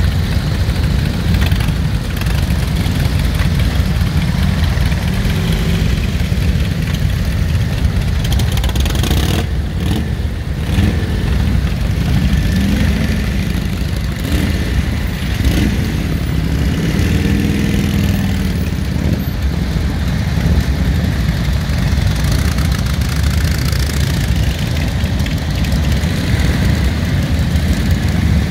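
A column of vintage motorcycles, Harley-Davidsons and Indians among them, running together as they pull away one after another. The engines rev up and ease off repeatedly over a steady low rumble.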